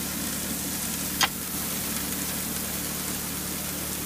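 Small engine-driven water pump running steadily, feeding a highbanker sluice through a hose, under a steady rush of water. A single sharp click about a second in.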